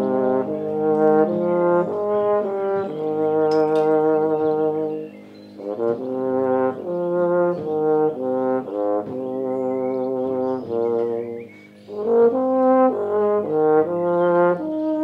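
Euphonium playing a slow melodic solo in phrases over the wind band's low held accompaniment. The melody pauses briefly about five seconds in and again near twelve seconds, between phrases.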